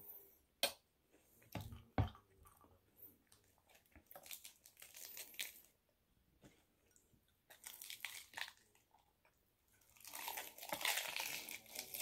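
Close-miked eating of a lettuce wrap: two sharp clicks in the first two seconds, then spells of crisp crunching and chewing of lettuce leaf. The loudest and longest spell is near the end, as the wrap is dipped and bitten.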